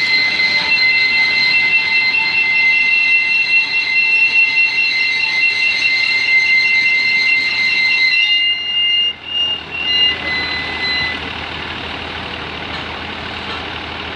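Heavy machinery running with a steady high-pitched whine over a noisy rumble; the sound changes abruptly about eight seconds in, and the whine dies away a few seconds later, leaving the lower, steady machine noise.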